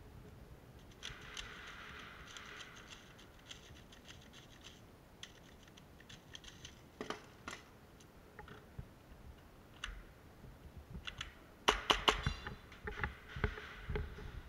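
Scratching and rustling of a moving airsoft player's clothing and gear, with scattered clicks and footfalls. Near the end comes a quick cluster of loud, sharp clacks followed by a rapid run of ticks.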